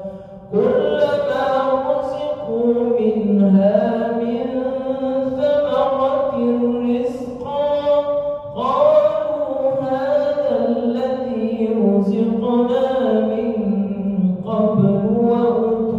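A male imam reciting the Quran aloud in a slow, melodic chant during a night prayer, holding long, ornamented notes. There is a short breath about half a second in, and a new phrase begins about eight and a half seconds in.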